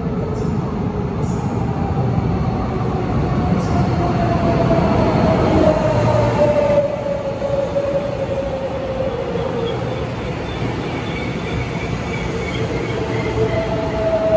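Taiwan Railways electric multiple-unit train running past an underground station platform: a steady rumble of wheels on rail with a whine that falls slowly in pitch as it goes by, loudest about six seconds in.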